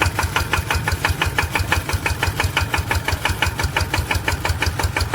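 Small Japanese engine on a homemade rice-sprayer machine running steadily, with an even, rapid chugging beat of several pulses a second.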